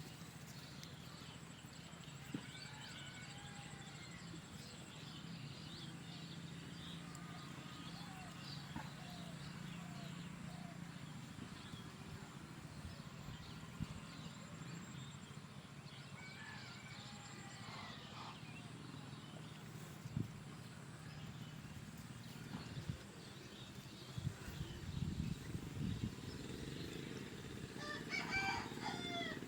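Chickens calling, with a rooster crowing now and then: faint calls come several times, over a steady low hum.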